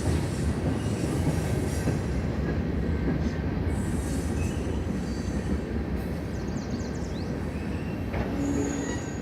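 Freight train rolling past: a steady rumble of wheels on rail, with faint high-pitched wheel squeals over it.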